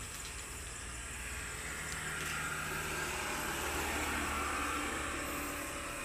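A motor vehicle's engine running steadily, growing somewhat louder toward the middle and easing off again near the end.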